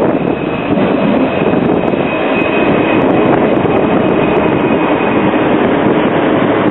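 Alstom Citadis light-rail tram arriving at a stop and passing close by as it slows: a steady rolling rumble of wheels on rail, with a thin high whine running through most of it.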